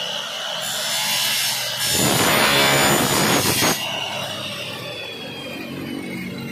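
Electric miter saw cutting through an aluminum window-frame profile. The motor whine turns into a loud, harsh cut from about two to four seconds in, then the blade winds down with a falling whine.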